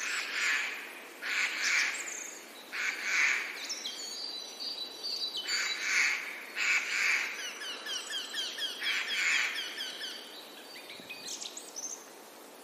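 Birds chirping and calling: strings of short, quick high notes, with harsher calls every second or two.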